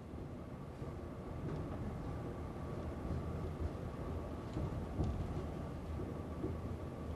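Tram running, heard from inside the car: a steady low rumble with a thin, steady whine above it.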